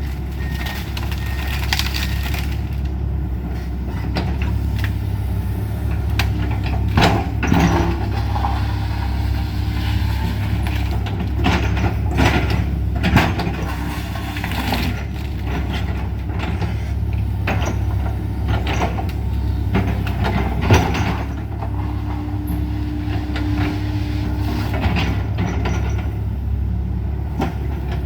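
Excavator's diesel engine running steadily while wood and debris crack and crash again and again as the house is torn down. A steady whine comes and goes twice.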